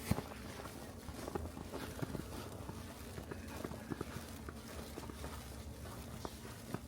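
Footsteps of a person walking through fresh snow, faint and even at about two steps a second.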